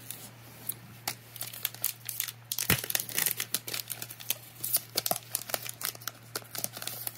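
Foil wrapper of a Pokémon Shining Fates booster pack crinkling and crackling as it is handled in gloved hands, in a quick run of sharp crackles that is busiest in the middle.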